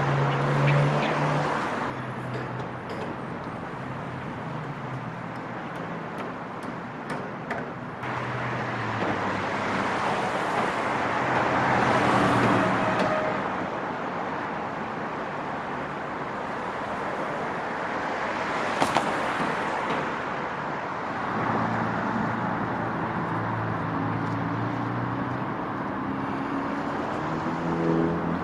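Street traffic: cars and other motor vehicles running and passing, with the loudest pass about twelve seconds in and a brief sharp sound about two-thirds of the way through.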